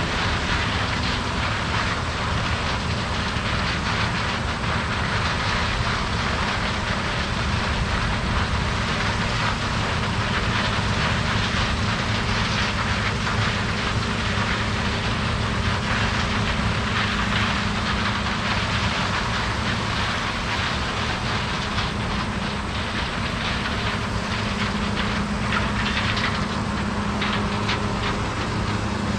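Harvest machinery running steadily in the field: a constant low engine drone with a loud, even hiss over it.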